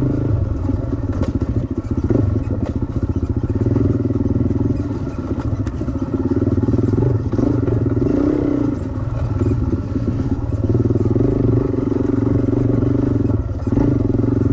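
Dirt bike engine heard up close from on the bike while riding a forest trail, revving under throttle and easing off about three times, around the middle and again near the end.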